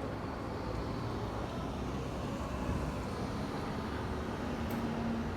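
Street traffic ambience: a steady hum of passing cars, with a low steady tone joining near the end.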